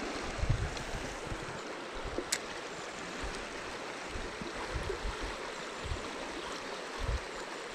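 River water running steadily over shallow gravel riffles, a continuous rushing with a few short low bumps.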